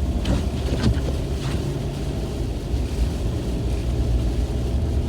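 Steady low rumble of a car driving on a snowy road, engine and tyre noise, with a few faint ticks in the first second and a half.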